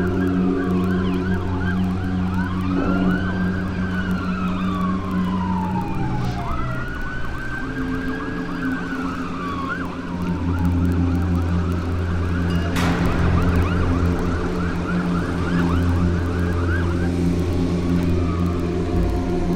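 Several sirens sounding at once: slow wails rising and falling in pitch overlap with rapid yelping sweeps, over a steady low hum. A single sharp click comes about 13 seconds in.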